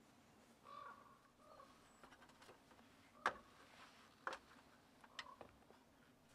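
Near silence with a faint call, like a distant bird's, about a second in, then a few soft knocks in the second half, the first of them the loudest.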